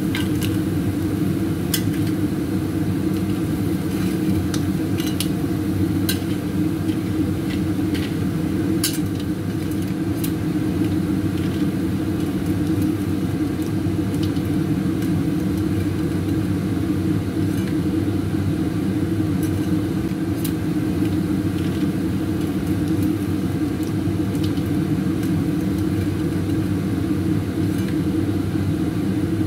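Metal spatula scraping and clicking against a steel wok and crab shells as cooked crabs are lifted out onto a plate, a dozen or so scattered clicks over a steady low rumble of kitchen noise.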